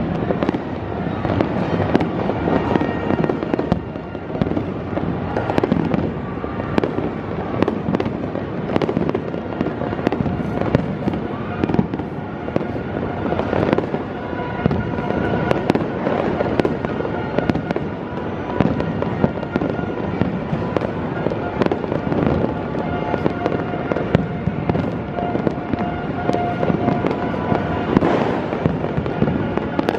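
Continuous barrage of fireworks and firecrackers: many overlapping bangs and crackles with no pause.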